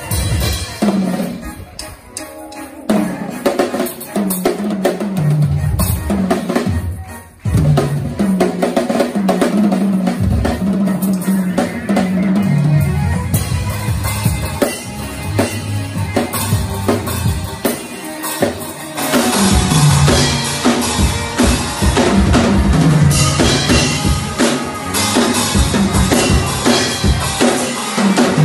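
Acoustic drum kit played live: kick drum, snare and toms with crashing cymbals in busy grooves and fills. The sound turns brighter about two-thirds of the way in.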